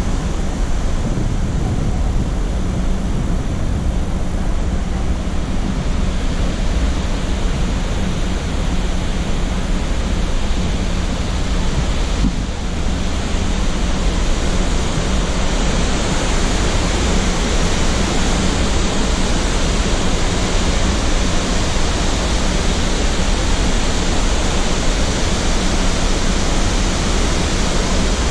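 Upper Mesa Falls, a large waterfall on the Henrys Fork, rushing in a steady, loud wash of water noise; the rush turns brighter and fuller from about halfway through.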